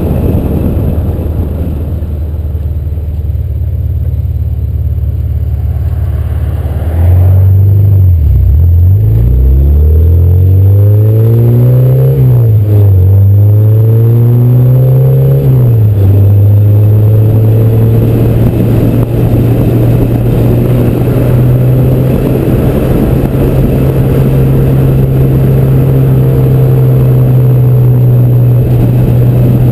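Supercharged K20/K24 engine of a 2008 Honda Civic Si, heard from the outside of the moving car. About seven seconds in it gets louder and accelerates, its pitch climbing and dropping back at several gear changes, then it settles to a steady cruise.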